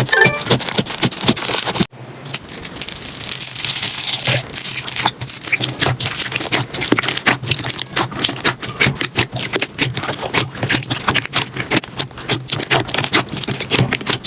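Slime being squeezed and poked by hand, a dense run of small clicks, pops and crackles, with a brief break about two seconds in.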